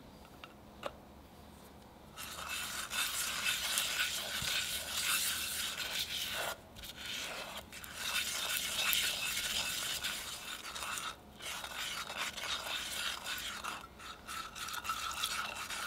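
Silicone spatula stirring and scraping a thick egg yolk, sugar and cornstarch mixture around a saucepan. It makes a continuous scratchy rubbing that starts about two seconds in and pauses briefly a few times. Two faint ticks come in the first second, as the cornstarch is tipped in.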